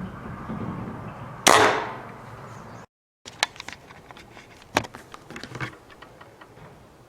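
Benjamin Marauder pre-charged pneumatic air rifle firing a single shot about a second and a half in: one sharp report that dies away quickly. A few light clicks follow.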